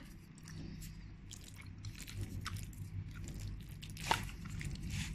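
Close-up chewing of a mouthful of fried flat rice noodles (koay teow goreng), with small wet clicks and one sharper click about four seconds in, over a low steady hum.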